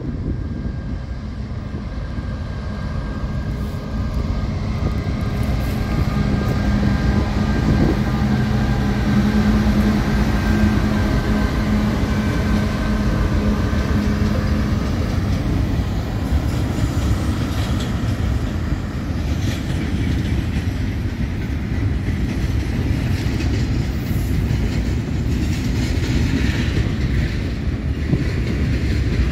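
Aurizon intermodal freight train passing: its diesel-electric locomotives go by with a steady low engine drone that grows louder over the first quarter of a minute. Then the container-laden flat wagons follow with a continuous rumble and clatter of wheels over the rails.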